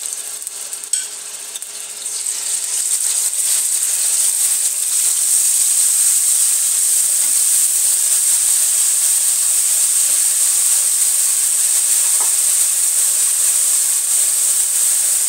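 Onion paste frying in hot oil in a stainless steel pan, sizzling steadily, and growing louder over the first few seconds as it heats. A wooden spatula stirs it, with a single knock about a second in.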